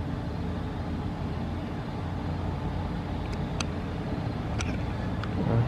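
Vehicle engine idling steadily, with a few faint clicks about midway.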